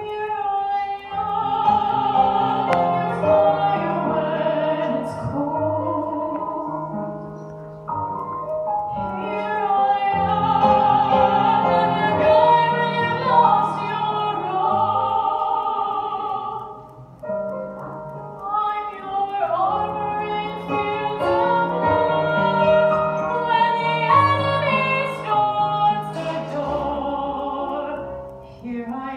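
A woman singing in an operatic style with vibrato into a microphone, accompanied by a Roland FP-7 digital piano. The sung phrases pause briefly about eight and seventeen seconds in.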